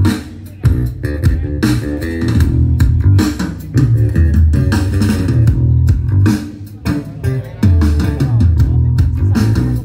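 Recorded music with a prominent bass guitar and guitar, played loud through a UAPro T24 sound-system speaker during a sound check.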